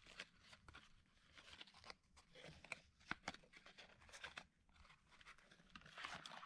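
Faint handling of a small paperboard carton: the end flap is pried open and the plastic tube is slid out, giving scattered crackles, scrapes and clicks of card rubbing on card and gloves.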